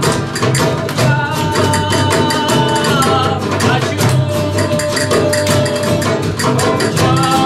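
Live flamenco-style music: two acoustic guitars strumming and plucking over hand-drum percussion, with a dense, quick rhythm of strokes and some held melodic notes.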